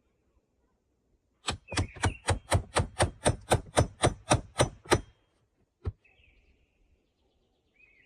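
A hammer striking in a quick steady run, about fifteen blows at roughly four a second, then a single last blow a second later. Faint bird chirps are heard between.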